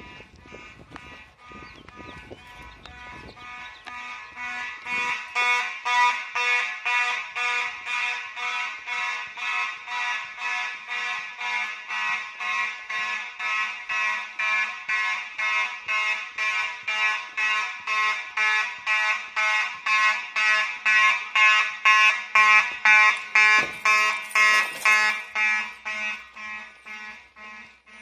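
Fire alarm horn of a Simplex 4002 system sounding in march-time code, a pulsed blast about twice a second. It grows louder from about four seconds in and fades off near the end.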